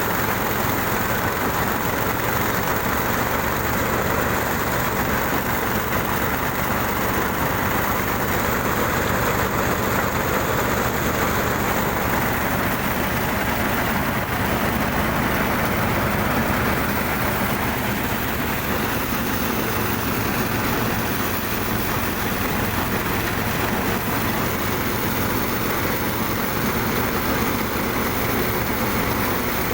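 Small engine-driven machine running steadily, a dense mechanical noise that holds the same level throughout.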